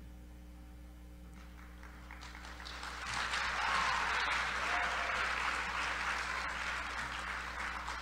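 Audience applauding, building up about two seconds in and slowly dying down toward the end.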